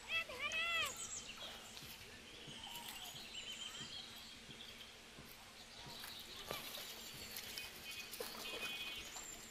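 Birds chirping and calling over a steady outdoor background hiss. A run of arched calls comes just after the start, short chirps follow midway, and a quick trill comes near the end.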